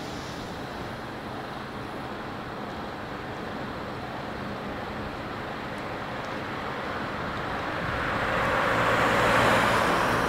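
Street traffic noise: a passing road vehicle's tyre and engine noise swells gradually to its loudest near the end.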